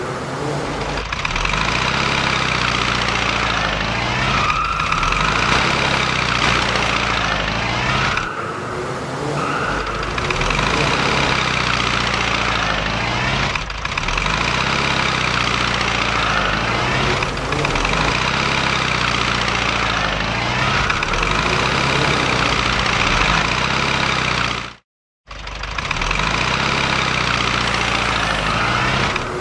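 Cartoon vehicle engine sound effect running steadily as the ambulance drives, cutting out completely for a moment about 25 seconds in and then resuming.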